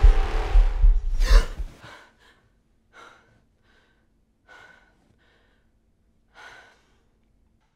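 A loud, deep rumble with a sharp whoosh that cuts off suddenly about a second and a half in. Then a young woman's gasping breaths: a few short ones, three of them louder, spaced about a second and a half apart.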